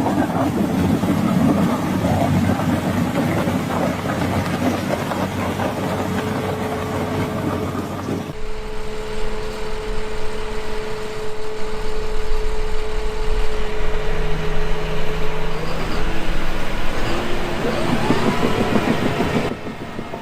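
Heavy-machinery diesel engines running, in two edited clips: first a rough, loud engine sound, then, after a cut about eight seconds in, a steadier engine with a held whine that rises in pitch a few seconds before the end.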